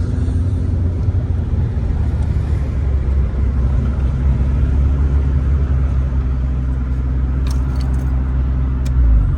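Twin-turbocharged Infiniti G35's V6 engine pulling at steady revs on the road as a low, even drone. Near the end it swells briefly, then drops away as the throttle is lifted, with a few light ticks.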